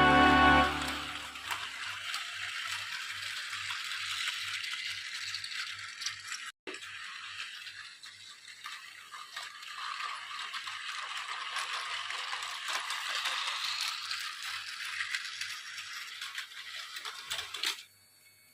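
Battery-powered Plarail Hiro toy train running on plastic track: a steady rattling whir with a soft regular clicking about three times a second, cutting off near the end.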